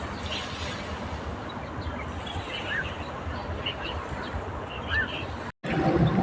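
Small birds chirping in short, scattered calls over a steady low rumble of outdoor background noise. The sound cuts out for an instant near the end and comes back louder.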